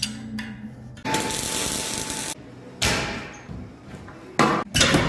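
Workshop tool sounds: a power tool runs for about a second and a half, then a few sharp metal knocks and bangs near the end.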